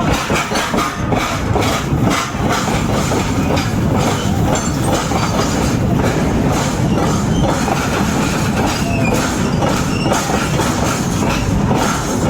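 A train running past over the rails: a steady, loud rumble of wheels on track, with rhythmic clickety-clack in the first couple of seconds.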